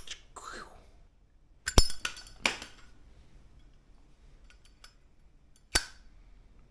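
Zippo lighter's hinged metal lid clicking and clinking in the hand as it is pushed and snapped: a few sharp metallic clicks, the loudest about two seconds in and another near the end.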